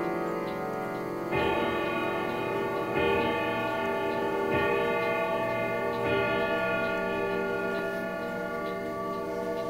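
Howard Miller grandfather clock's Urgos triple-chime movement striking the hour: four evenly spaced strokes about a second and a half apart, each left ringing and fading out after the last. The pendulum's ticking runs faintly underneath.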